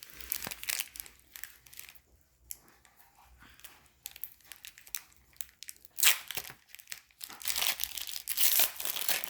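Soccer card pack wrappers crinkling and being torn open in irregular bursts, loudest about six seconds in and over the last two seconds.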